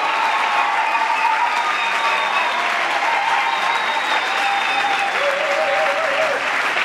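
Audience applauding steadily, with a few voices calling out over it.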